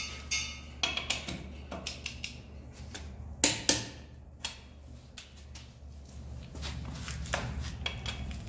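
Torque wrench set to 95 clicking on the lug nuts of a UTV wheel: a string of short clicks and knocks, with two sharp ones close together about three and a half seconds in. The wrench clicks out with the nuts barely turning, as they were already tight from the impact wrench.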